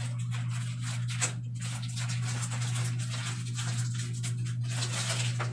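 Scratchy rustling from sterile-gloved hands handling a rubber urinary catheter, over a steady low hum.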